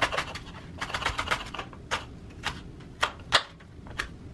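Chef's knife chopping a white onion on a wooden cutting board, the blade tapping the board: a quick run of taps in the first second and a half, then single knocks about every half second, the loudest a little over three seconds in.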